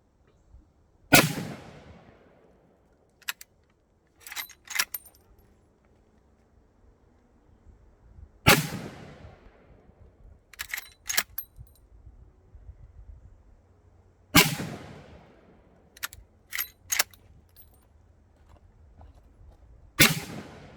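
Four shots from a Marlin 1895 SBL lever-action rifle in .45-70 Government, about six seconds apart, each ringing out for about a second. Between shots come quick metallic clacks as the lever is worked to eject the spent case and chamber the next round.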